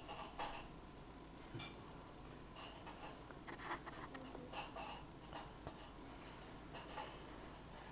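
Faint rustling and light scratching in short irregular bursts, a dozen or so, from fabric and bedding being handled.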